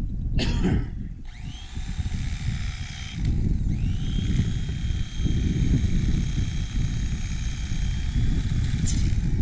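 Mister Twister 120-volt electric fillet knife running as it cuts through a channel catfish. Its motor whines up to speed about a second in, drops out briefly around three seconds in and spins up again, then runs steadily until it stops near the end. A loud low rumble lies underneath throughout.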